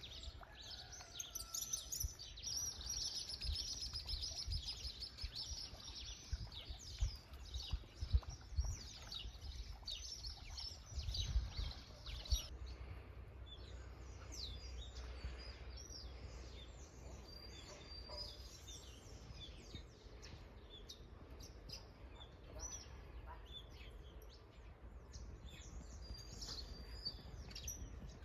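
Many birds chirping and calling, with a dense chorus of short high chirps in the first half that thins out later. A low rumble lies underneath, with a few louder bumps about 7 to 12 seconds in.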